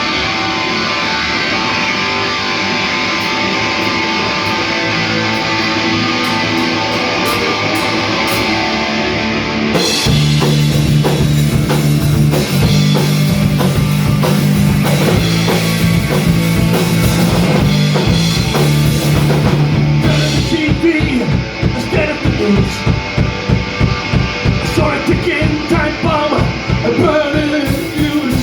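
Punk rock band playing live, an instrumental intro led by electric guitar. Heavy low bass notes come in about ten seconds in, and a fast, even drum beat takes over about twenty seconds in.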